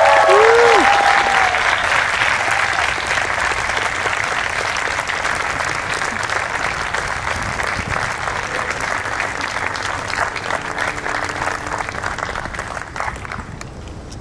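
Audience applauding, with a brief vocal whoop at the start. The clapping slowly weakens and dies away near the end.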